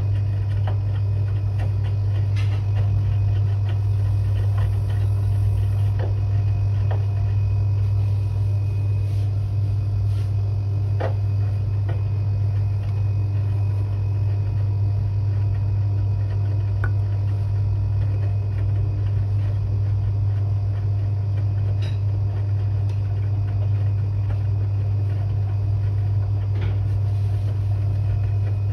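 Washing machine running steadily: a constant low hum with a few faint steady tones above it and scattered faint clicks.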